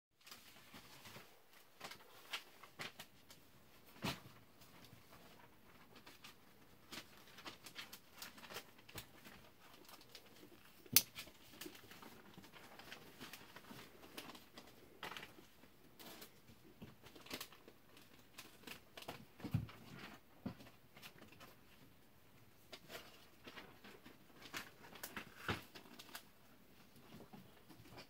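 Faint handling of a Cold Steel Code 4 lockback folding knife with an aluminium handle: scattered light clicks and ticks from the knife in the hand, with one sharp click about eleven seconds in as the blade is opened and locks.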